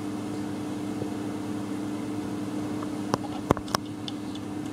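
A steady machine hum in the background, with three sharp clicks a little after three seconds in as the compression tester's hose and fitting are handled.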